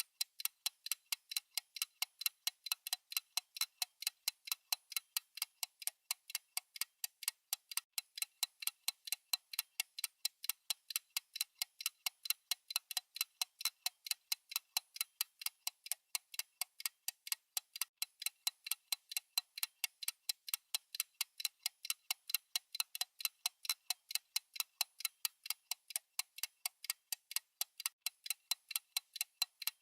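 Clock-style ticking sound effect: a steady run of sharp, evenly spaced high clicks.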